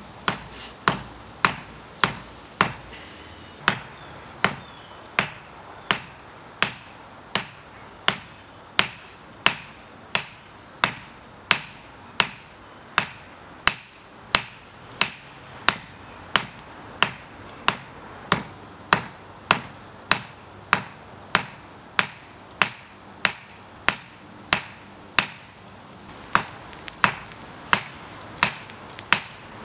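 Hand hammer forging red-hot coil-spring steel on a steel block anvil: steady blows about two a second, each with a bright metallic ring, pausing briefly twice.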